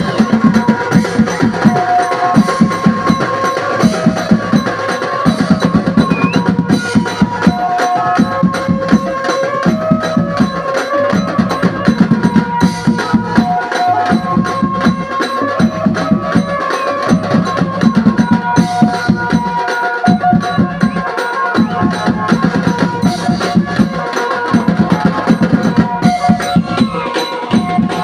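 Live band music: a group drumming hard on large drums in a steady, repeating dance rhythm, with a melody of held notes over it.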